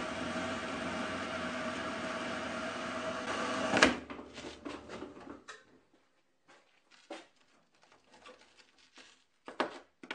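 Wooden bandsaw with a 3 TPI metal-cutting blade sawing through a 1-inch square steel bar, a steady grinding hum with a sharp clack about four seconds in as the cut breaks through, after which the saw sound dies away. Then a few light clicks and a knock as the cut steel is handled.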